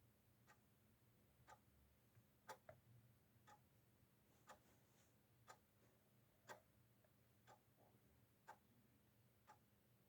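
Faint ticking of a clock, one tick a second, against near silence.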